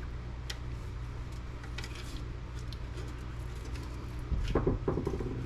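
Scattered light clicks and scrapes of hand tools working on the steel case of a network appliance being pried apart, over a steady low hum, with a louder brief sound about four and a half seconds in.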